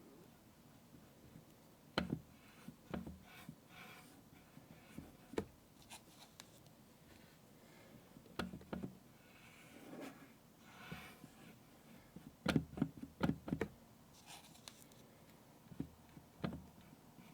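Paint being drawn onto a plastic Anpanman toy face: soft rubbing strokes, broken by light knocks and taps as the toy and tools are handled, with a cluster of louder knocks about twelve to fourteen seconds in.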